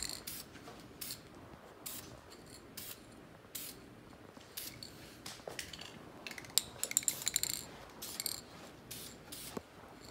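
Aerosol can of caliper paint spraying in short bursts: a string of brief hisses, bunched most closely about seven seconds in.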